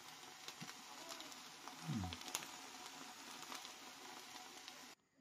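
Pancake frying in hot oil in a pan: a faint, steady sizzle with scattered small crackles. A brief low falling sound comes about two seconds in, and the sizzle cuts off suddenly near the end.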